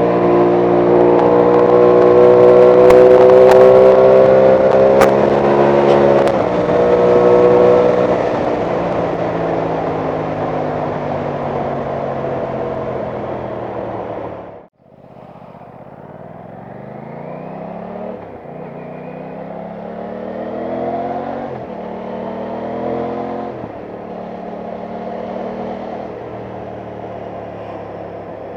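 Aprilia Tuono 660 Factory's parallel-twin engine under way, loud at first and rising in pitch as it accelerates, then easing off. After a sudden break about halfway it comes back quieter, revving up through the gears in several short rising pulls with gear changes between them.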